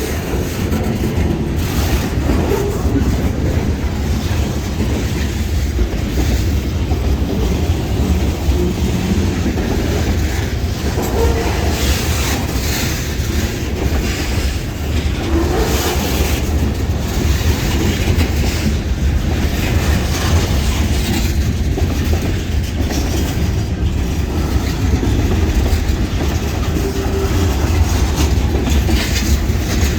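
Freight train rolling steadily past with a constant low rumble, its wheels clicking over the rail joints every few seconds.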